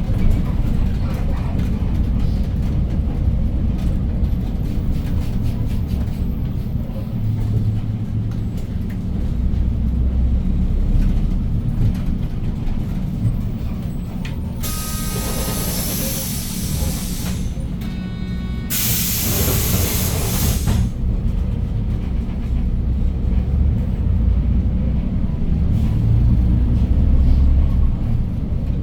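A 2015 Hyundai New Super Aerocity city bus's C6AF CNG engine running steadily while driving, heard inside the cabin as a low rumble. About halfway through come two loud bursts of compressed-air hiss from the bus's air system, a couple of seconds each, with a short gap between them.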